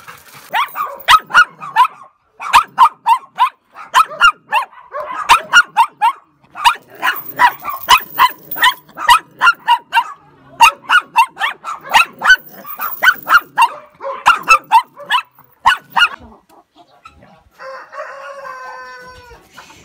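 Small dog barking in a rapid, unbroken string of high, sharp barks, about three a second, that stops about three-quarters of the way through. A short, drawn-out pitched call follows near the end.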